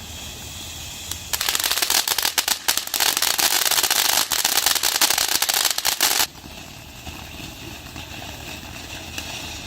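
Consumer ground firework crackling and popping rapidly in a dense burst, starting about a second in and lasting about five seconds before stopping abruptly. A fainter steady hiss comes before and after.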